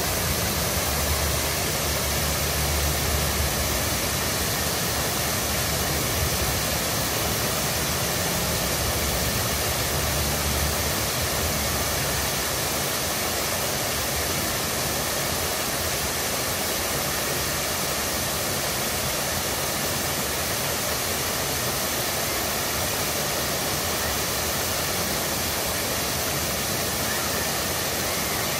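Many water jets of a large show fountain spraying high and falling back into the pool: a steady rush of water and spray, with a low hum underneath for the first ten seconds or so.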